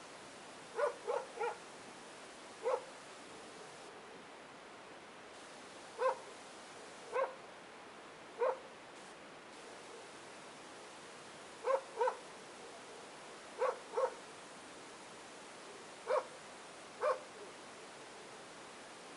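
Mixed-breed dog barking in short barks, single and in quick pairs, about a dozen spread out with gaps of one to three seconds, over a steady hiss.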